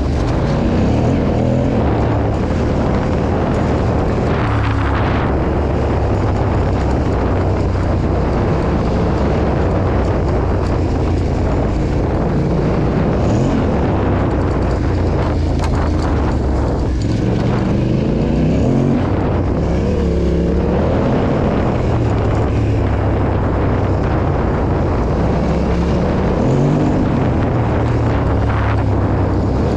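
Yamaha Ténéré 700's parallel-twin engine pulling hard off-road, its revs repeatedly rising and falling with the throttle.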